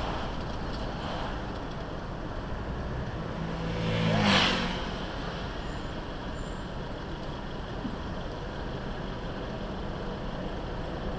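Steady city traffic and road noise picked up by a dash cam inside a car, with a louder whoosh of a vehicle passing close about four seconds in, rising and falling within a second.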